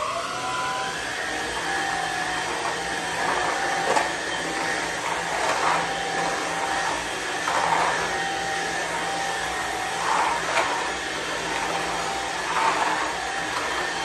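Inse S600 cordless stick vacuum switching on, its motor whine rising over the first second, then running steadily while it is pushed over tile floor. A few sharp ticks and small swells come through as it sweeps up dirt.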